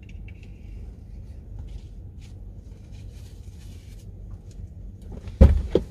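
Faint rustling and small clicks of a face mask and sunglasses being handled over a low steady rumble inside a car. About five and a half seconds in comes a loud sudden clunk with a second click right after it: the driver's door latch opening.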